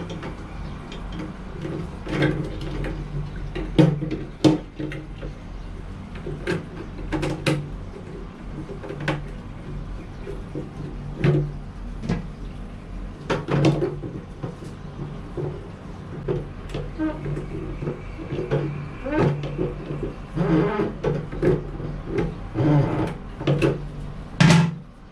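Irregular knocks and clunks as the fittings inside a plastic toilet cistern are handled, over a steady low hum.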